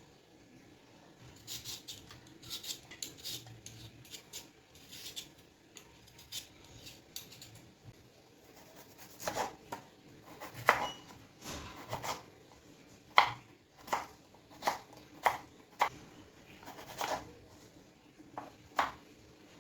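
Kitchen utensils and cookware being handled: irregular clinks and knocks, light at first and louder and sharper in the second half.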